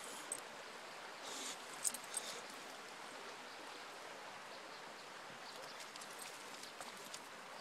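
Small stream running below, a steady, even rush of water, with a few faint clicks about a second and a half in.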